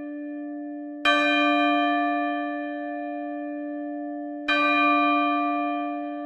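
A large bell struck twice, about three and a half seconds apart. Each stroke rings on in a long, slowly fading hum that is still sounding when the next stroke comes.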